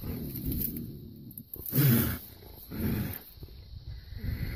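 A cougar caught in a leg trap snarling and growling in about four short bursts, loudest about two seconds in: the defensive threat sounds of a trapped, cornered mountain lion.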